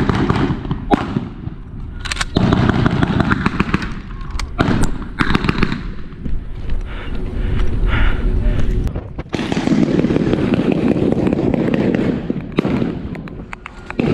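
Blank-firing small arms in a mock battle: scattered sharp gunshots, single cracks one to a few seconds apart, over a steady low rumble.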